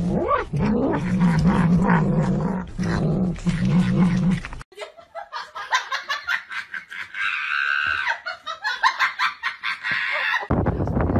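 A pet growling low and steadily, with a short break, for about four and a half seconds. Then quick clicking and tapping, with a brief higher-pitched call in the middle.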